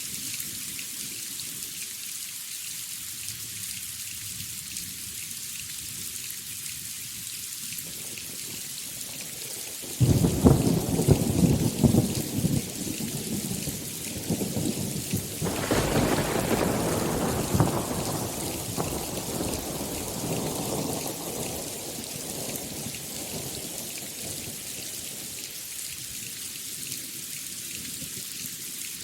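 Steady rain hissing throughout. About ten seconds in a thunderclap breaks suddenly with crackling peals, surges again a few seconds later, then rumbles away slowly and dies out under the rain.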